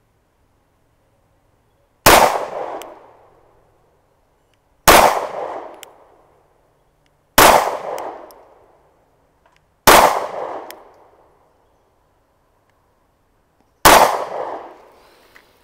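Five pistol shots from a Sig Sauer P365X 9mm micro-compact, fired one at a time about two and a half seconds apart with a longer pause before the last. Each shot is followed by a short echo that dies away within about a second.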